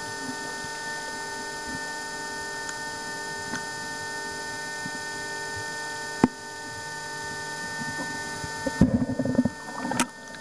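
A steady electrical-sounding hum made of several fixed tones, with a single sharp click about six seconds in and a cluster of louder irregular knocks and rumbles near the end.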